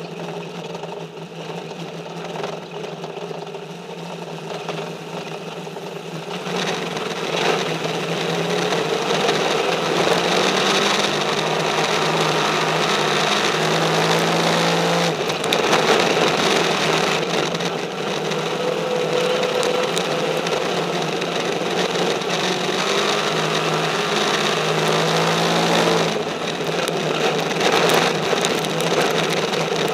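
Race car engine heard from inside the cockpit, its pitch rising and falling as the driver accelerates and lifts. It runs quieter at first, then louder from about seven seconds in.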